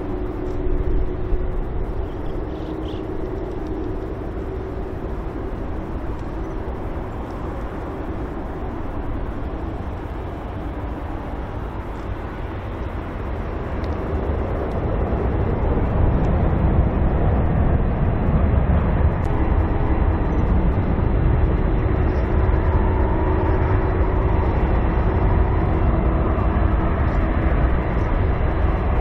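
Boeing 747-400's four Pratt & Whitney PW4056 turbofans at taxi power, a low rumble with a steady hum. It grows louder about halfway through as the jet turns toward the microphone to line up on the runway.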